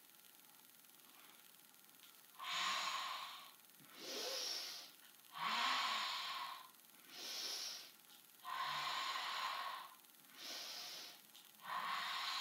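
A woman breathing audibly in a steady rhythm, with seven breaths alternating longer and shorter starting about two seconds in: paced Pilates breathing kept in time with the exercise.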